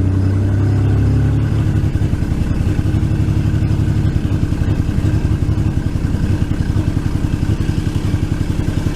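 Ford 4.2L V6 engine of a 2001 F150 running under load while power braked, held in gear against the brakes. The note is steady at first, then turns choppy and uneven a few seconds in: the engine is stumbling from misfires on cylinders 1 and 3.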